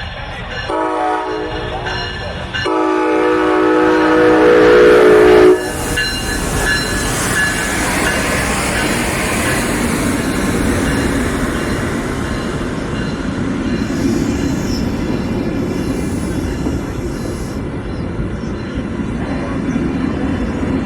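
Train horn sounding two blasts, a shorter one and then a longer, louder one, followed by the steady rumble of the train passing on the tracks.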